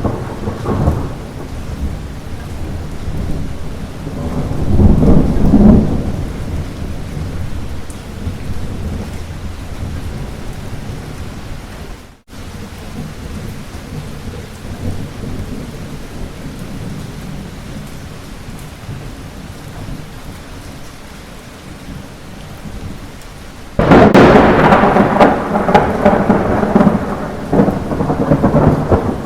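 Steady light rain with a roll of thunder rumbling about five seconds in. Near the end a sudden loud thunderclap breaks and keeps rumbling. About twelve seconds in the sound cuts out for a split second.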